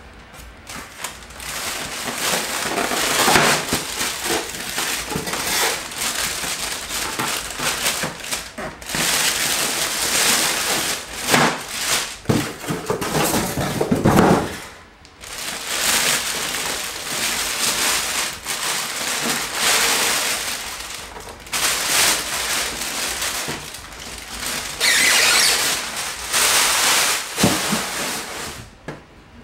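Clear plastic packaging bag crinkling and rustling in close-up as a new printer is pulled free of it, with scattered small knocks and squeaks from the polystyrene foam packing blocks.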